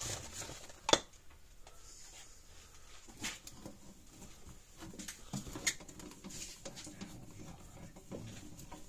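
Small sharp clicks, taps and rattles as the metal case of a Hol-Dem solid-state electric fence charger is handled and screwed back together with short Phillips screws. The sharpest clicks come about every two and a half seconds.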